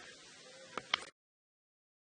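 Faint background hiss with two or three sharp clicks about a second in, then the sound cuts off abruptly to dead silence.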